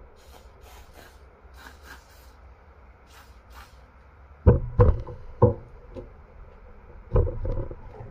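Several short hisses from an aerosol can of Star brite fogging oil sprayed through its straw into a Mercury outboard distributor, loosening a stuck part. About halfway through come a few dull knocks and clunks as the metal distributor is handled on the towel-covered bench.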